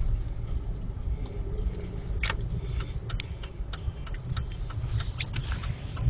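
Vehicle driving slowly on a snow-covered road: a steady low rumble of engine and tyres, with scattered sharp clicks and ticks through it, more of them in the second half.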